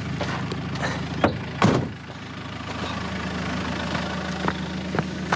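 Car engine idling steadily, with one loud thump about a second and a half in and a few faint clicks near the end.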